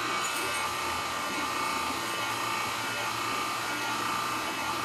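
Electric pasta roller motor running steadily with a constant hum as the dough is fed through the machine.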